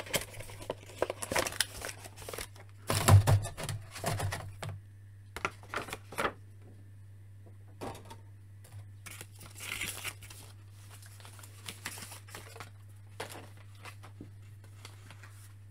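Cardboard window box and clear plastic tray of an action figure being handled and slid apart: scraping, rustling and clicking of card and plastic, busiest in the first five seconds, then only occasional light taps and rustles.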